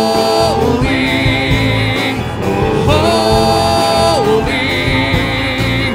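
Live church worship band playing a slow gospel song: voices singing long held notes over acoustic guitar, keyboard and congas.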